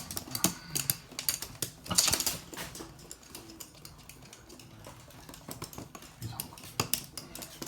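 Toy poodle's claws clicking and tapping irregularly on a hard floor, with a few louder knocks about half a second in, about two seconds in and near the end.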